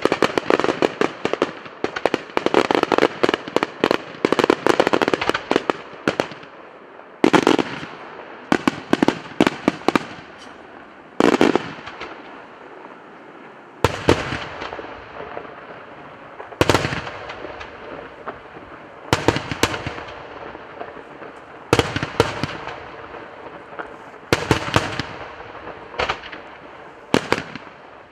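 Daytime aerial fireworks shells bursting: a dense rapid volley of crackling bangs for the first six seconds or so, then single loud reports every one to three seconds, each echoing away.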